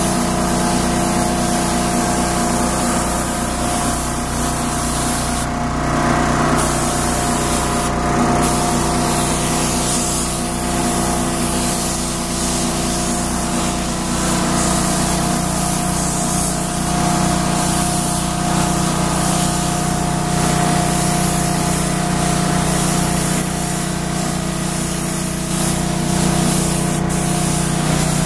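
Steady hiss of compressed air from a gravity-feed spray gun spraying a nano coating onto steel, over a steady low machine hum.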